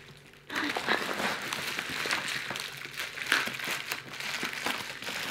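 Plastic bubble wrap crinkling and rustling as it is handled and pulled open. It starts about half a second in and carries on as a run of small crackles.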